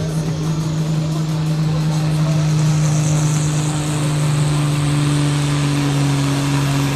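Pulling tractor's diesel engine running at steady speed, a loud, even drone.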